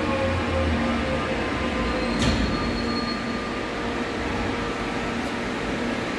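Electric subway train pulling in and slowing to a stop at the platform, its motors giving off several steady tones over the running noise. A sharp clack comes about two seconds in, followed by a brief thin high tone.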